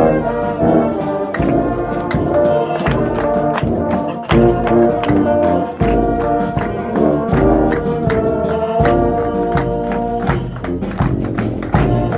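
Brass band music: brass instruments playing a tune over a steady beat.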